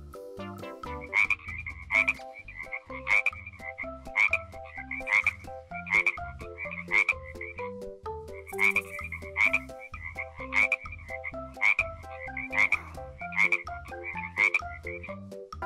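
Battery-operated toy frog playing its electronic frog croaks, about once a second, over a simple beeping electronic tune.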